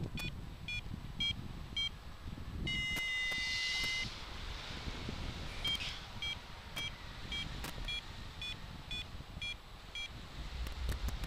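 Paragliding variometer beeping in short high pips, about two a second, the beep pattern that signals climbing air. About three seconds in, a longer held tone of a second or so breaks the run. Wind rushes on the microphone underneath, with scattered clicks.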